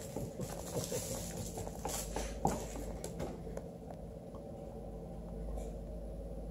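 A beagle puppy's paws and claws tapping and scuffing on a hardwood floor as it tugs at a stuffed toy, with one sharper click about two and a half seconds in.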